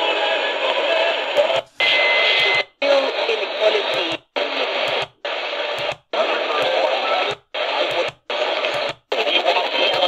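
Midland ER50 portable radio being stepped up the AM band one channel at a time: short snatches of static, talk and music from each station, each cut off by a brief silent mute as the tuning steps on, about once a second.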